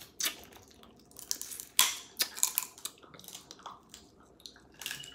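Close mouth sounds of eating crab: sucking meat out of a crab leg shell, with irregular wet smacks and clicks, the sharpest a little under two seconds in.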